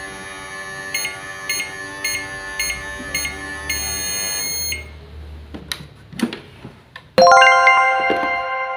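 A steady electric hum with short high beeps about twice a second, stopping suddenly near the middle, then a few light taps. About 7 s in comes a loud bell-like ding that rings out slowly.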